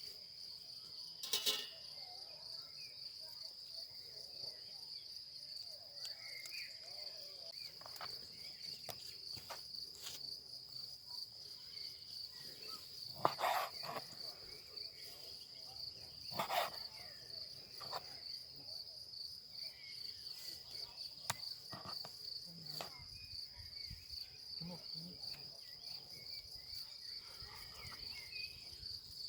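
Insects chirring in one steady, high-pitched unbroken drone, with a few short knocks or clatters, the loudest about 13 seconds in.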